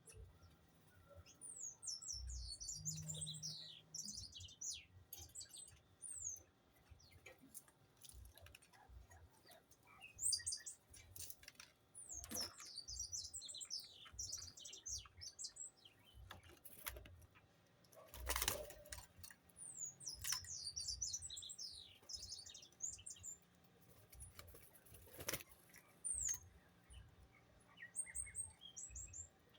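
Small birds chirping in several bursts of rapid, high-pitched notes, with scattered sharp clicks between them.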